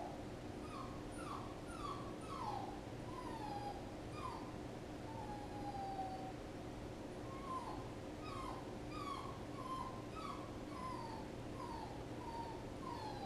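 Puppy whining: a string of short, high, falling whimpers, with one longer drawn-out whine about five seconds in, a brief pause, then a quicker run of whimpers.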